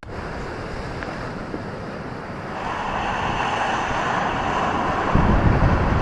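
Ocean surf washing on a beach, a steady hiss of water that swells from about halfway through. A deep rumble comes in near the end, with wind buffeting the microphone.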